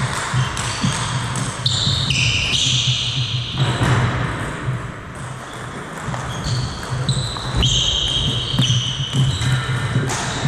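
Table tennis rally: the ball clicks off the rackets and the table in quick sharp taps, and sneakers give short high squeaks on the sports-hall floor.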